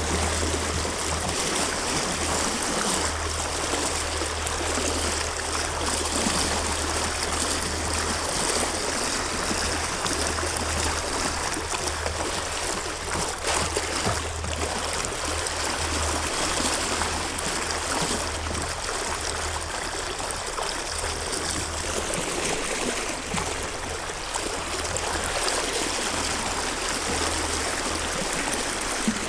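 Steady rushing water, with a low rumble that comes and goes underneath.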